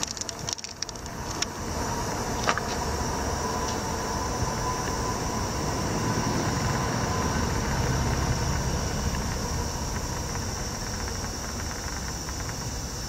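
A motor vehicle engine running steadily, its low rumble swelling a little toward the middle, with a few light clicks in the first couple of seconds.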